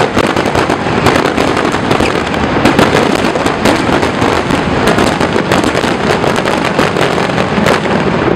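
Aerial fireworks going off in a dense, continuous barrage of bangs and crackling.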